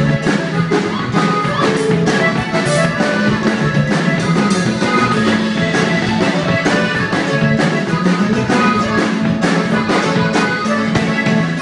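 Norteño band playing a huapango live, with a drum kit and plucked guitar-family strings over a steady, busy beat.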